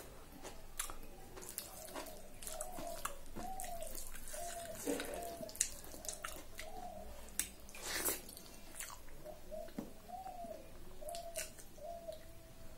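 Close-up eating sounds: wet chewing and lip smacks as handfuls of soft khichdi are eaten by hand, with fingers squishing the rice on a steel plate. Short sharp clicks throughout, and faint short chirps repeating about once or twice a second behind them.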